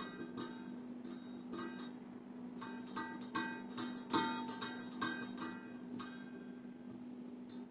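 Plucked-string music: a quick run of short notes that stops about six seconds in, over a steady low hum.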